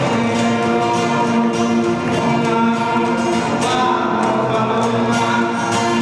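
Music with a choir singing, loud and unbroken.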